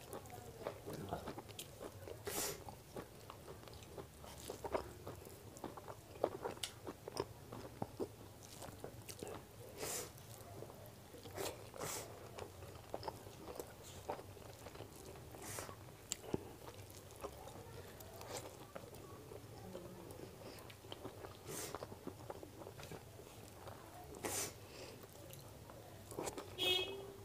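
Close-miked eating sounds: chewing and lip smacks of a person eating chicken biryani rice by hand, with sharp mouth clicks every second or two and a short flurry of them near the end.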